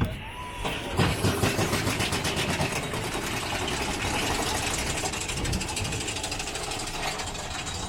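Big Thunder Mountain Railroad mine-train coaster running on its track: a rapid, even mechanical clatter that starts about a second in and carries on steadily.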